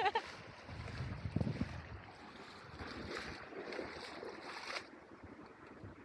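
Stream water running, with wind on the microphone and a few brief splashes as someone wades across.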